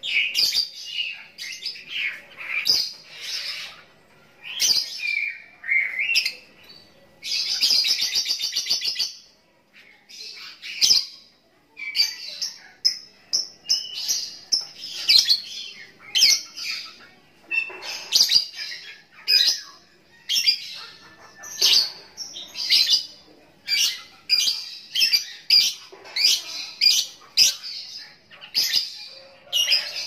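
A lovebird singing a long chattering song of quick, high chirps and squeaks in bursts. About a quarter of the way through comes a rapid buzzing trill of about two seconds.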